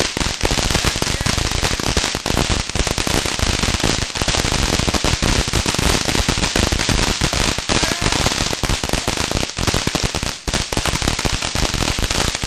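Firecrackers going off in a long, dense run of rapid sharp pops, crackling almost without a break.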